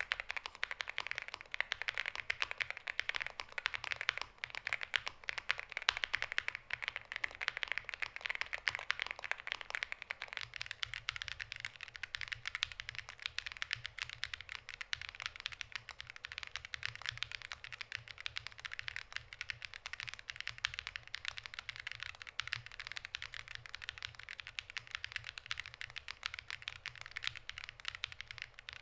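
Continuous fast typing on a NuPhy GEM80 mechanical keyboard with Lemon switches and stock stabilizers: a dense stream of key clacks. About ten seconds in the typing turns slightly lighter and thinner.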